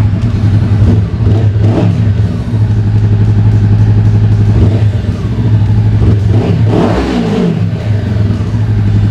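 Honda CBR500R's 471 cc parallel-twin engine running just after starting, idling steadily with a few short throttle revs, the biggest about seven seconds in.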